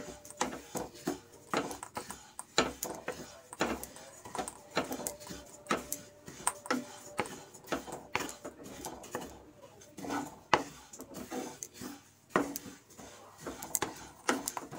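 Spatula stirring sesame seeds as they dry-roast in a nonstick kadhai: irregular scraping and tapping of the spatula against the pan.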